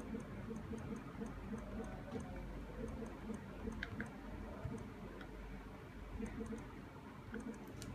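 Soft ticks of typing on a Samsung Galaxy Note's touchscreen keyboard, a quick run of key presses, about four a second, with a brief pause about five seconds in.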